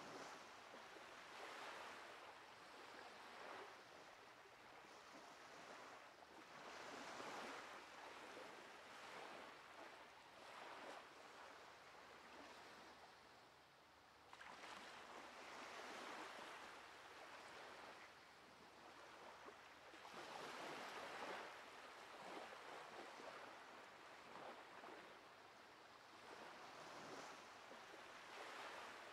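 Faint ocean surf: waves washing in and drawing back, rising and fading every few seconds.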